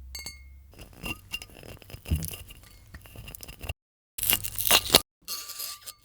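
Close-up scraping, tearing and clicking sounds in short clips that cut off suddenly, with a louder burst about four seconds in and a light glassy ring near the end.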